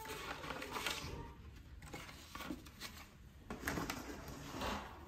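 Paper and cardboard packaging rustling and scraping in several short bursts as it is handled: the instruction manual's card sleeve and the box's cardboard insert.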